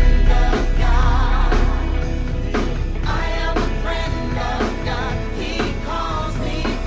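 Gospel worship song with sung vocals and a full band, with a drum kit playing a steady beat of about two hits a second. The music gets quieter about two seconds in.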